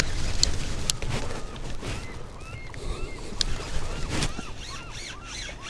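Steady low rumble of river and wind on the microphone, with sharp knocks from the fishing rod being handled during the fight with a salmon. Over the second half comes a string of short rising-and-falling squeaks, several a second.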